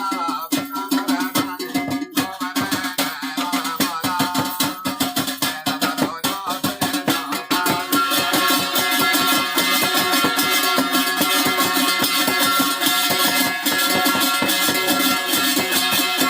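Garhwali folk music: held melodic tones over a fast, even percussion beat that grows denser and steadier about halfway through.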